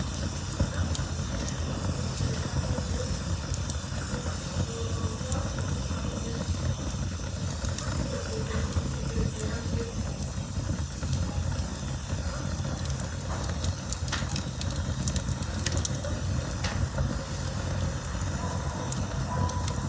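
Campfire burning: a steady low rumble and hiss, with scattered sharp crackles and pops that come thickest about two-thirds of the way through.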